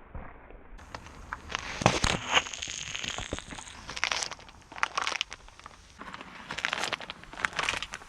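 Crunchy objects being crushed under a car tyre: a long run of crackles, snaps and crunches, with a low rumble beneath.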